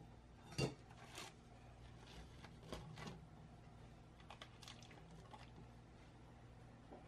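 A sharp knock about half a second in, then a few softer knocks and light rustles, as a just-baked sponge cake in its parchment lining is set down and handled on a metal wire cooling rack, over a faint low hum.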